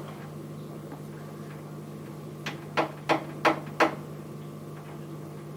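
Five short, sharp clicks in quick succession, a fraction of a second apart, about two and a half seconds in, over a steady low hum.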